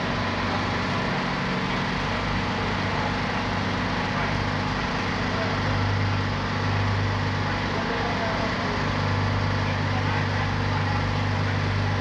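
A car running with a steady low drone, which grows stronger about six seconds in and again from about nine seconds on.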